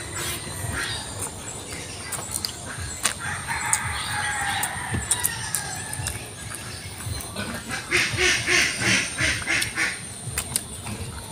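Eating sounds of people eating with their hands: scattered lip smacks and chewing clicks. Bird-like calls are mixed in: one drawn-out call sliding down in pitch a few seconds in, and a quick series of calls near the end, which is the loudest part.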